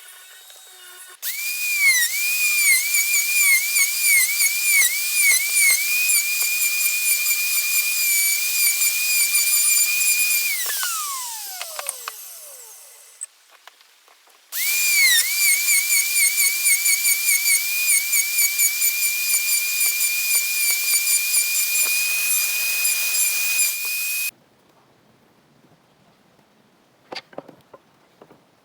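High-speed electric power tool working wood: a high whine that sags in pitch in repeated quick dips as it bites, then holds steady. It is switched off and winds down in a falling whine, starts again with the same dips, and cuts off suddenly.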